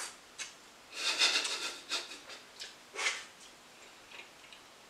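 A person slurping and chewing a mouthful of spaghetti in a few short noisy bursts, the loudest about a second in.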